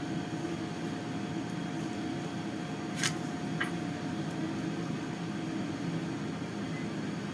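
Steady low background hum, like a running fan or appliance, with a faint thin tone; two brief light clicks about three seconds in.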